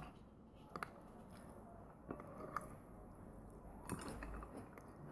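A spoon scooping canned tuna and mixing it into rice: a few light clicks of the spoon with soft squishing of wet food between them.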